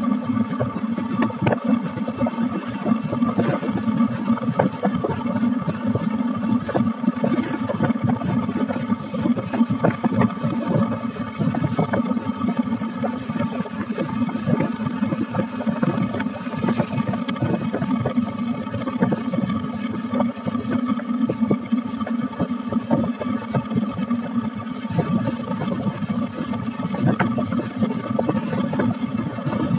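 Wind buffeting the microphone while riding, a dense steady rush with fast flutter, over a steady engine hum.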